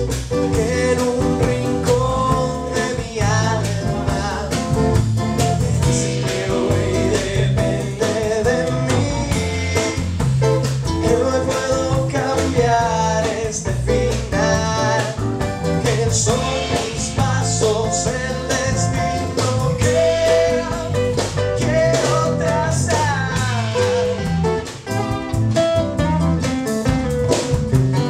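Live band playing a song: strummed acoustic guitars, another guitar and a drum kit with cymbals, with a man singing lead.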